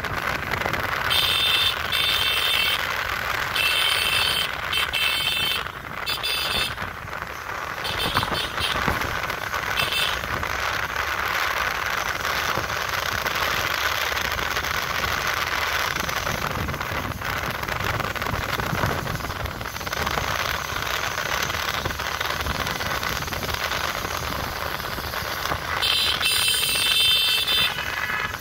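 Motorcycle riding along, a steady run of engine, tyre and wind noise, with a string of short horn blasts in the first ten seconds and again near the end.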